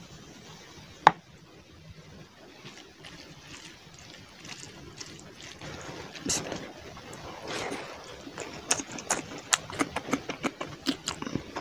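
Curry gravy poured from a bowl onto rice, with one sharp knock about a second in, then wet squelching as the rice and curry are mixed by hand. Near the end come close-miked chewing and lip-smacking clicks, several a second.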